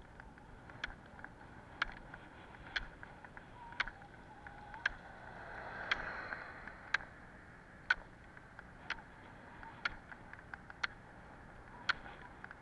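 Roller-ski pole tips striking the asphalt about once a second, over a steady rolling hiss from the roller-ski wheels on the road. A broader swell of noise rises and fades around the middle.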